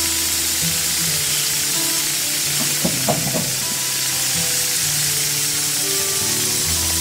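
Steady hiss of steam escaping from a small brass model steam engine and its boiler, with a brief cluster of clicks about three seconds in. Background music with held low notes plays over it.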